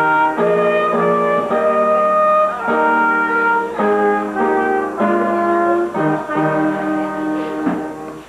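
A brass band playing a slow tune in held chords, the chords changing about once a second; the music trails off near the end.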